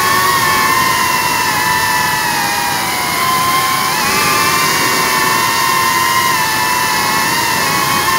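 FPV quadcopter motors and propellers whining close to the onboard camera, a steady high whine whose pitch drifts up and down with the throttle and dips briefly about three seconds in.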